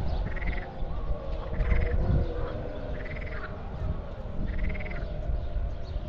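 A short animal call repeating four times, about once every one and a half seconds, over a steady low rumble.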